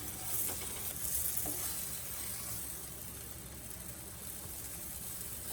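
Ghee sizzling steadily in a frying pan under a layered pastry pie cooking over low heat, with a couple of faint small clicks.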